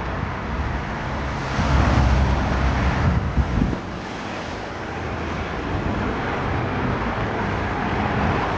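Wind buffeting the phone's microphone in a heavy low rumble, over street traffic noise.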